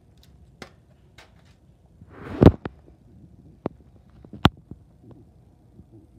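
Handling noise: scattered light clicks and knocks, with a louder swish that ends in a sharp thump about two and a half seconds in, and two more sharp clicks a second or two later.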